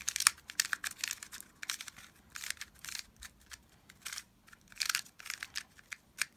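MGC Square-1 magnetic puzzle being turned by hand: quick irregular runs of light plastic clicks and clacks as the layers and slice are turned, with short pauses between runs.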